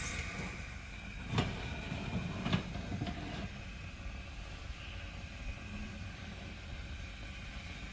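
A cake tin slid into an oven and the oven door shut: two knocks about a second apart with some scraping, then a steady low hum.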